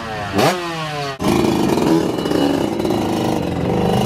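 Yamaha two-stroke motocross bike revving in a sharp throttle blip, the revs falling away after it. About a second in it changes to steady running under throttle as the bike pulls away.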